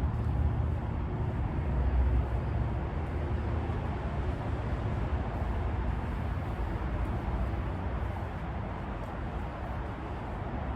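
Steady outdoor background noise, a low rumble like distant traffic, a little louder in the first couple of seconds and easing slightly toward the end.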